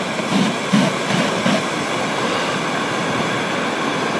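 Polyurethane spray foam gun spraying foam: a steady, even hiss of pressurized spray.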